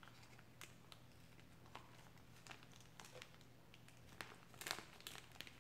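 Faint crinkles and small clicks of a plastic dressing packet being squeezed out over a salad, a few ticks clustering near the end, over a low steady hum.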